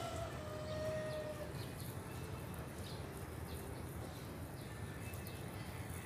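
Outdoor ambience: a steady low rumble with a few short, high bird chirps, and a single held whistled note early on lasting about a second.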